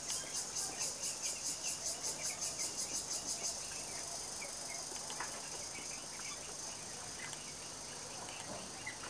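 High-pitched insect chirping, pulsing about four times a second, then settling into a steady trill about three and a half seconds in.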